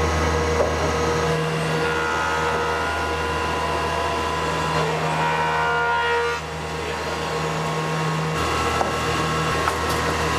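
A 37-inch wide, 60 hp spiral-head jointer planer running with a steady hum while a walnut slab feeds through and is surfaced by its cutter heads.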